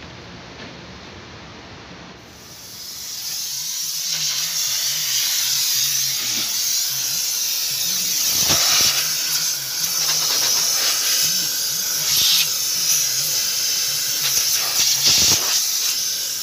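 A hand-held nozzle with a thin extension tube hisses steadily as it jets into the empty cabin air filter housing, cleaning it out. The hiss starts about two seconds in and swells in a few louder surges.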